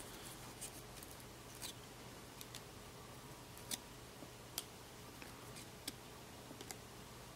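A stack of trading cards being flipped through in the hand, one card at a time: faint, irregular clicks and snaps of card edges, roughly one a second.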